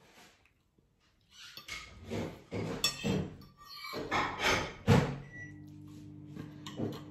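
Cutlery and dishes clinking and knocking, ending in a loud thunk about five seconds in, then a short beep and a microwave oven starting its steady low hum to reheat bread.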